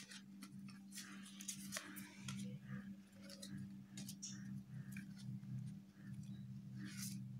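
Printed paper sheets being flipped through and shuffled by hand: a string of quick rustles and soft slaps of paper, over a steady low hum.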